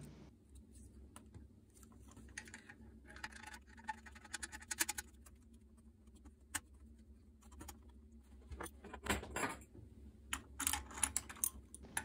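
Irregular small clicks and rustles of hands pushing spade connectors onto a replacement pressure switch (pressostat) and handling its wires. The sounds are faint and come in two busier spells.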